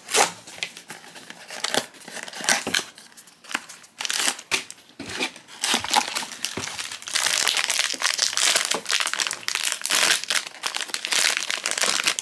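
A cardboard blind box being opened by hand, then the crinkly foil bag inside pulled out and torn open: irregular crackling and rustling of foil, busiest in the second half.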